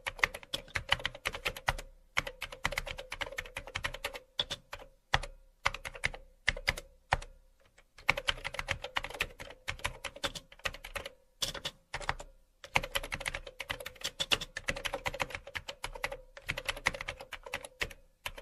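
Typing on a computer keyboard: rapid, irregular key clicks in bursts, with brief pauses between them.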